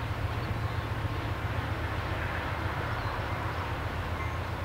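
Empty autorack freight cars rolling past, a steady rumble of steel wheels on the rails.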